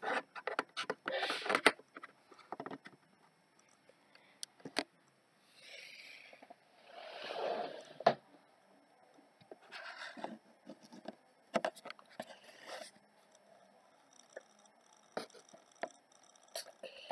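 Handling noise: scattered clicks, taps and scrapes as a laptop with its webcam is tilted and small plastic figures are handled, with a few soft rustling stretches in between.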